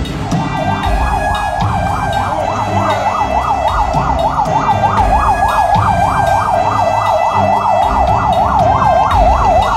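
Emergency vehicle siren in a fast yelp, its pitch sweeping up and down several times a second. It starts about half a second in.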